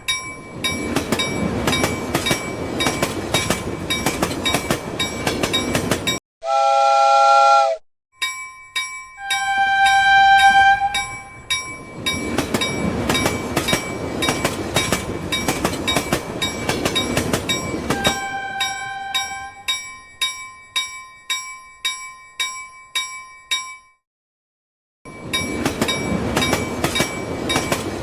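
Toy electric bullet train running on its track: a steady motor rattle with evenly spaced clicks from the wheels. Electronic horn beeps sound twice, about ten seconds in and again later. A louder electronic tone sequence plays briefly about six seconds in.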